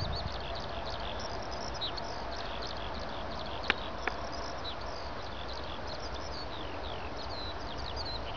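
Small birds chirping in many quick, high notes over the steady, distant hiss of a Boeing 747's jet engines. Two sharp clicks sound about half a second apart, a little under four seconds in.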